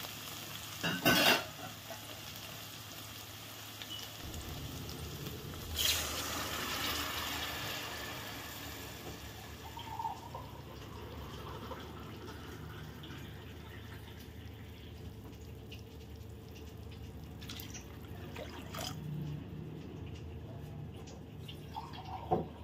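Water poured from a glass into a hot kadai of sautéed vegetables, with a sharp splash about a second in and another near six seconds followed by a few seconds of hissing, then the water in the pan simmering quietly.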